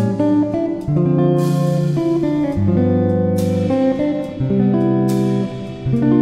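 Instrumental background music: plucked notes and chords that start sharply and fade, changing about once a second.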